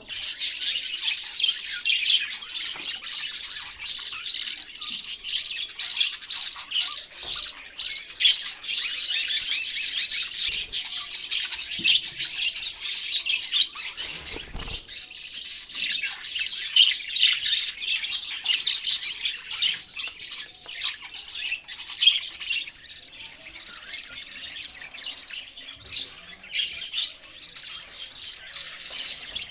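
A flock of budgerigars (parakeets) chattering, with many quick chirps and squawks overlapping continuously; the chatter thins slightly near the end.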